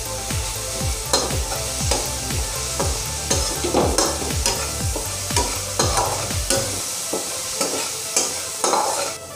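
Tadka of ginger-garlic paste and green chilli sizzling in hot oil in a nonstick kadai, while a metal spatula stirs and scrapes it around the pan with frequent light clicks.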